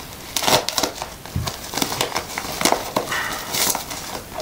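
A postal packet being torn open by hand, its wrapping crinkling and tearing in irregular bursts with a few sharp crackles.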